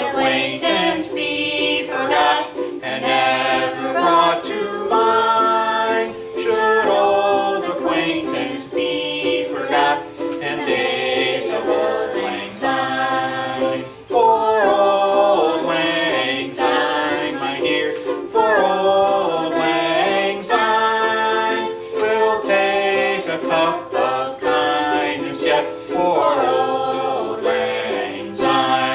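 Several voices, men's and women's, singing a song together to a strummed ukulele.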